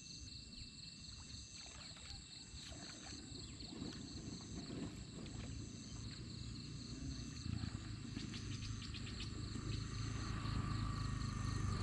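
Insects chirping in a steady high chorus, one part pulsing about once a second, over water sloshing as a person wades through a pond. A low rumble grows louder in the last few seconds.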